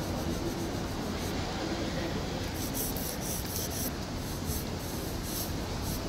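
Fingers rubbing soft pastel into rough asphalt to blend it, with a run of short strokes, about three a second, in the middle, over a steady low rumble.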